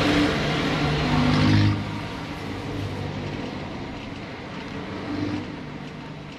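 A motor vehicle engine running, a loud rush of engine noise that drops off about two seconds in and continues as a lower, steady engine sound.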